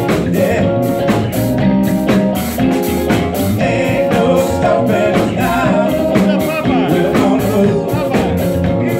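Live band playing: a singer on vocals over electric guitar, electric bass and a drum kit, with a steady beat.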